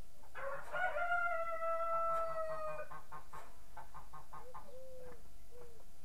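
A rooster crowing once: one long call of about two and a half seconds that rises at the start and then holds. Three short calls follow near the end.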